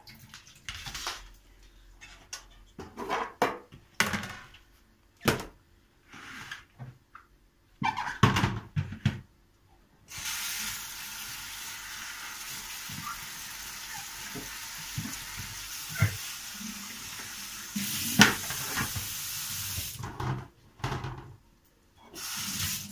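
Kitchen tap running steadily for about ten seconds in the middle as fresh cucumbers and green peppers get a final rinse under it in a plastic colander, after three washes in bowls. Before and after it, short knocks and clatter of the vegetables being handled in plastic bowls at the sink.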